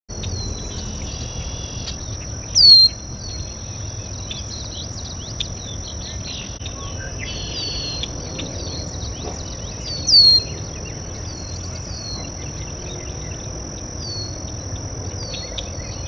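Red-winged blackbird giving a short, sharply falling whistled call twice, about seven seconds apart, with fainter falling notes and chatter between. Underneath runs a steady high insect trill and a low rumble.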